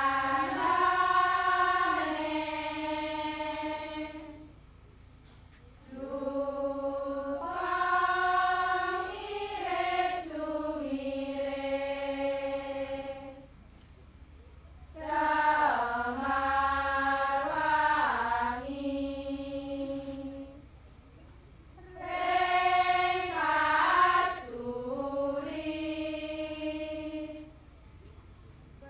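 A large chorus singing a slow sacred chant in unison, long held phrases that step up and down in pitch, with short pauses for breath between them: the trance song that accompanies the Balinese Sanghyang Jaran horse dance.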